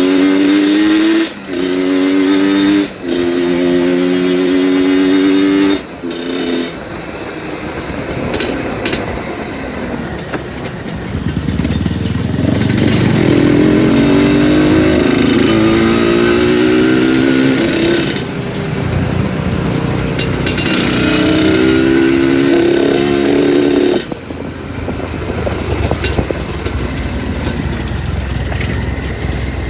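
Two-stroke trail motorcycle engine running hard at high revs, dropping briefly about one and a half and three seconds in as the throttle is eased or a gear is changed. After that the engine note comes and goes amid a rougher engine-and-ground noise, with abrupt changes partway through.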